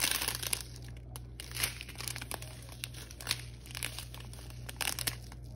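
Small clear plastic bags of diamond-painting drills crinkling as they are handled, in irregular bursts of crackle.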